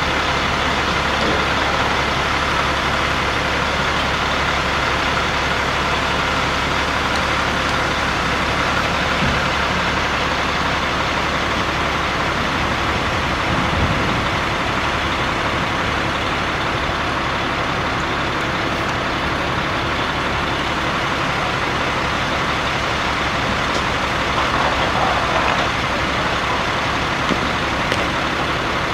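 A parked box truck's engine and onboard machinery running steadily: an unbroken drone with a low hum and an even hiss.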